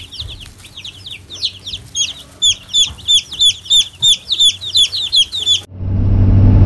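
Young chicks peeping in a brooder: a rapid run of high, falling peeps, several a second. About 5.7 s in it cuts to the steady low rumble of a pickup truck's cabin while driving.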